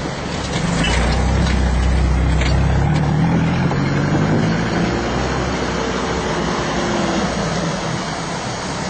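Off-road 4x4 vehicle engine running and pulling harder, a low rumble that swells about a second in and eases off after about three seconds.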